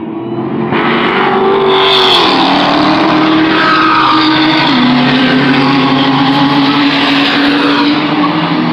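A car's engine running hard on a road course as the car drives past. It is loud and sustained, and its pitch drops in steps about two seconds in and again near five seconds.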